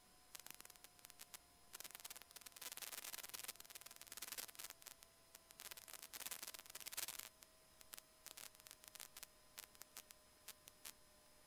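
Near silence on a cockpit audio feed: faint crackling static, thickest through the middle, over a faint steady hum and a faint tone that sinks slowly in pitch.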